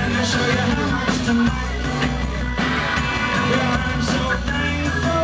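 Live rock band playing: electric guitars and drums with a steady cymbal beat, and a man singing into the microphone.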